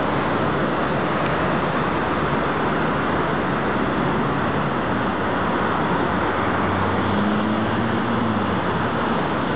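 Steady rumble of vehicle engines, with a low engine tone that rises slightly near the end.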